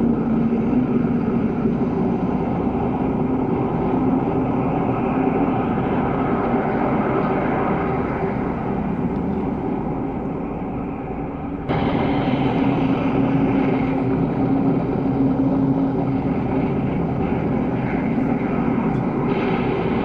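V'ger ambient sound effect: a dense, steady synthetic drone, rumbling underneath with a low hum. It sags a little, then jumps back to full strength abruptly about twelve seconds in.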